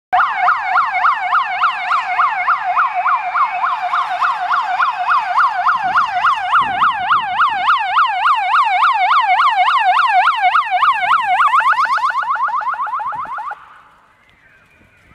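Fire brigade rescue van's electronic siren on a rapid up-and-down yelp, about three sweeps a second. About twelve seconds in it switches to a faster warble, then fades away and stops.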